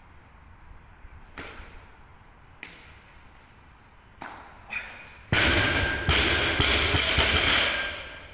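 Heavily loaded barbell with rubber bumper plates dropped from overhead onto a concrete floor: it lands hard about five seconds in, bounces with two more heavy hits, and the plates and bar rattle and ring for about two seconds.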